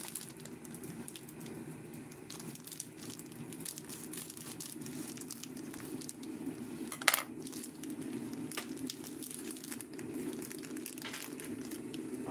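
Rustling and crinkling with scattered light clicks over a steady low hum, and one sharp click about seven seconds in.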